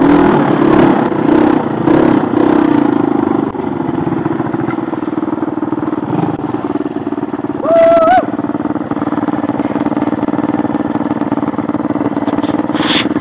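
Baja SSR200 dirt bike's single-cylinder engine revving in pulses on the trail for the first few seconds, then dropping to a steady idle. A short wavering call, like a shout, comes about eight seconds in.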